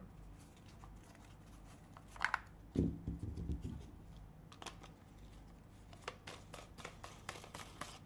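Quiet handling noise of a plastic rotary-tool attachment being twisted off one tool and fitted to another: light plastic clicks and rubbing, with a dull bump and short rattle about three seconds in.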